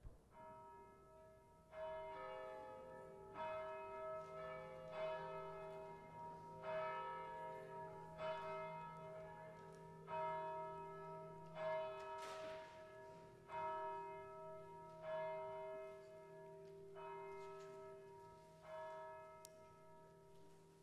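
A church bell tolling faintly, about a dozen strikes evenly spaced roughly every 1.7 seconds, each one ringing on into the next.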